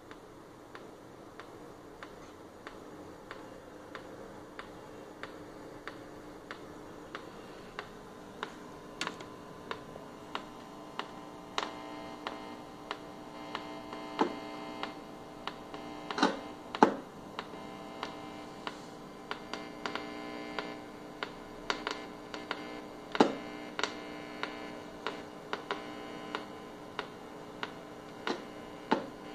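Electrical hum from a Toshiba television with no video signal: a steady buzz of several held tones. Sharp clicks come about once or twice a second, growing louder from about eight seconds in, with a few louder cracks.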